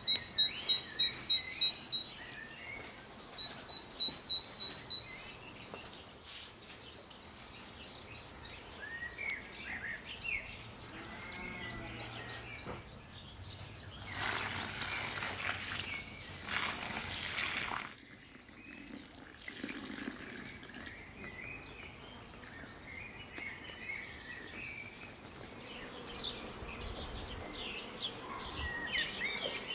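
Songbirds chirping, with one bird giving two quick runs of loud, evenly repeated chirps, about four a second, in the first five seconds. About halfway through, water pours in two streams from a plastic bucket into a basin of flour.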